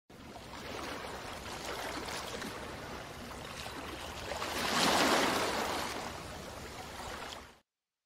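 A steady rushing noise, like surf or wind, that swells to its loudest about five seconds in and then cuts off abruptly near the end.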